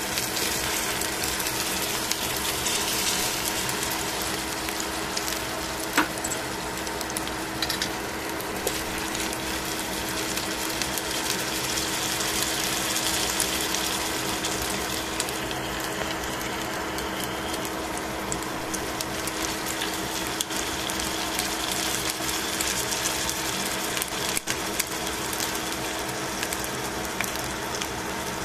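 Chicken wings sizzling as they pan-fry in a stainless steel pan, a steady dense crackle with a steady hum underneath. A single sharp click about six seconds in.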